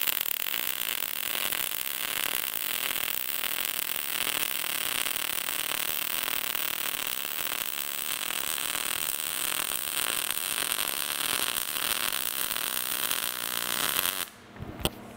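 Short-circuit MIG welding arc crackling steadily as a downhill fillet weld is run with .030 wire, the wire feed speed turned up to 235 for a more active arc going downhill. The arc cuts off near the end.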